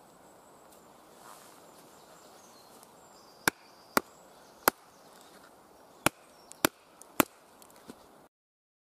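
Wooden baton striking the spine of a Fallkniven Idun knife, batoning the blade down through a short upright stick: about six sharp knocks at uneven intervals, with a few lighter taps among them. The sound cuts off suddenly near the end.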